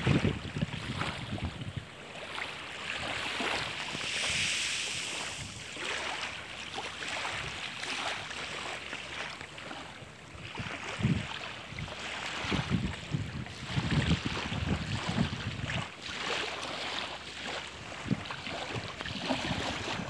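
Small sea waves washing onto the beach in a steady hiss, with wind buffeting the microphone in repeated low gusts.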